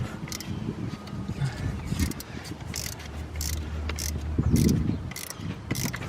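A 10 mm socket ratchet clicking in short strokes as it works a bolt on the truck's VVT solenoid. A low steady hum comes in about halfway through.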